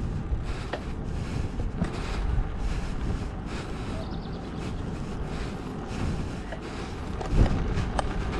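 Riding noise from a bicycle in motion: a steady low rumble of wind on the microphone and tyres on the path, with scattered light clicks and knocks and a louder low bump about seven seconds in.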